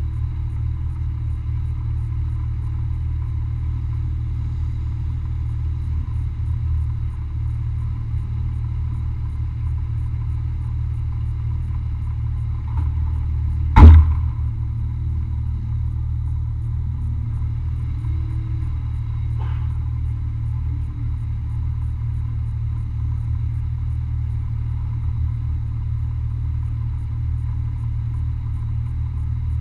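Off-road race vehicle driving, heard on board as a steady low rumble with faint rising and falling engine tones. About fourteen seconds in comes one hard knock, the loudest sound, like the vehicle hitting a bump.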